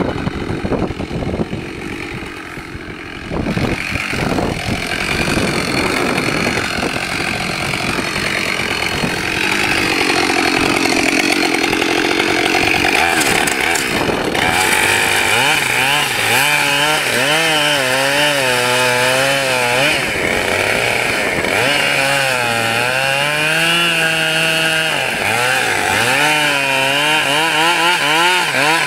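Husqvarna 572XP two-stroke chainsaw running, getting louder a few seconds in. In the second half it is cutting into a maple log, its pitch wavering up and down as the chain loads in the wood.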